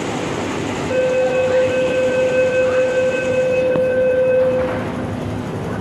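MTR door-closing warning tone: a single steady tone that starts about a second in and holds for nearly four seconds while the train doors and platform screen doors slide shut.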